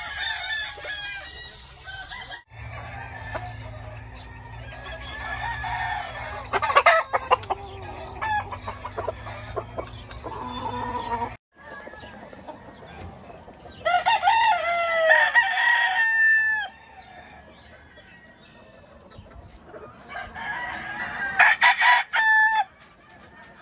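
Gamefowl roosters crowing and clucking in a yard of penned birds: a long crow about halfway through and another near the end, with scattered clucks between. A low steady hum runs under the first half.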